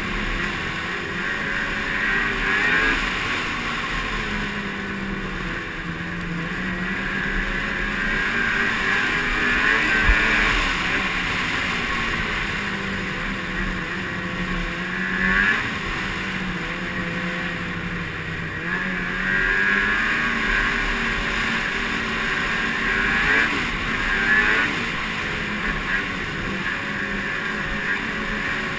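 Snowmobile engine running while the sled travels along a trail, its pitch repeatedly rising and falling.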